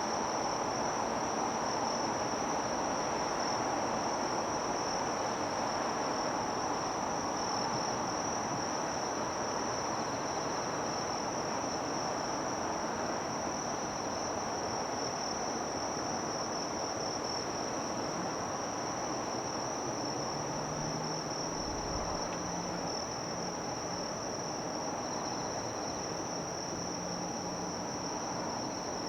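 A steady, unbroken high-pitched insect trill, typical of crickets, over a continuous broad background rumble of harbour noise. About two-thirds of the way through, a brief low hum and a dull low thump come in.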